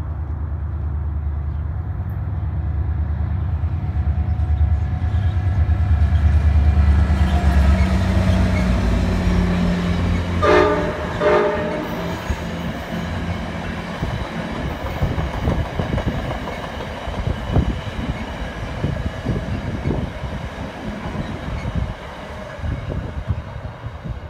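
Virginia Railway Express commuter train passing close by. The diesel locomotive's engine drone builds as it approaches, and two short horn blasts sound about ten seconds in. The bi-level passenger cars then roll past with a rapid clatter of wheels over the rail joints.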